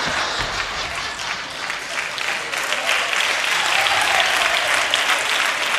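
Audience applauding, the clapping growing stronger about halfway through.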